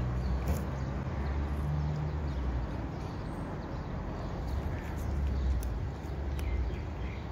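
Cat chewing dried small fish, with a few short, sharp crunches. A steady low rumble runs underneath.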